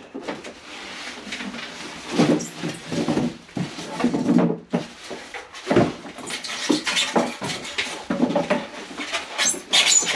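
Packaging being handled as a boxed appliance is pulled out: repeated irregular rustling, scraping and squeaking of packing material, with a sharper crackle near the end.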